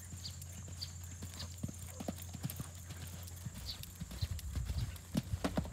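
Horse's hooves thudding on a sand arena at a canter, growing louder from about four seconds in as the horse passes close.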